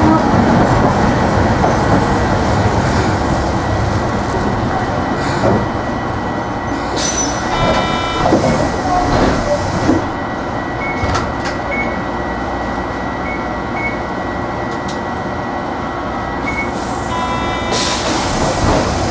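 Resistance-controlled Hiroshima Electric Railway 3700-series tram running: a steady rumble of wheels on rail, with the traction motors barely audible. The running noise eases about ten seconds in, and brief ringing tones come about eight seconds in and again near the end.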